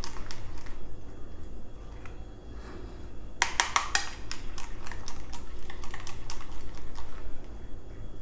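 A utensil clicking and knocking against a bowl as a batter is stirred. The clicks are sparse at first, come as a quick run of knocks about three and a half seconds in, then go on as regular clicks.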